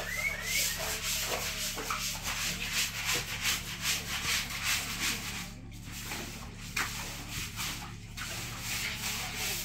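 Long-handled bristle scrub brush scrubbing a wet, soapy concrete floor in quick back-and-forth strokes, with a couple of brief pauses about six and eight seconds in.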